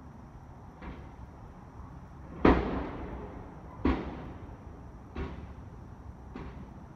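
A series of five sharp thumps about one and a half seconds apart, each with a short ringing tail. The second, about two and a half seconds in, is the loudest. A faint steady high-pitched tone runs underneath.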